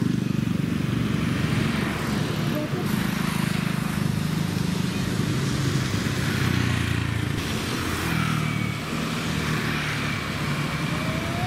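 Street traffic: motorbike and car engines running steadily close by, with scooters passing.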